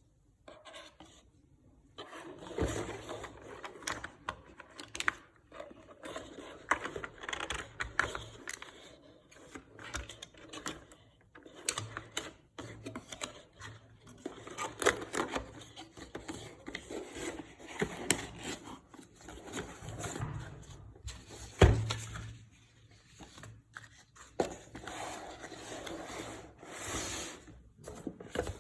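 Hands handling a CPU's retail box and packaging: irregular rubbing and scraping with scattered light clicks and knocks, and one sharper knock about three quarters of the way through.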